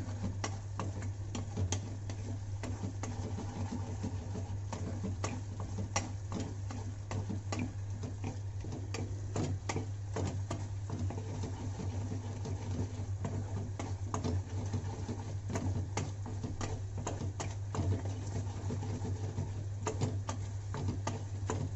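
Wooden spatula stirring thick gravy in a metal pan, with irregular scrapes and taps against the pan, over a steady low hum.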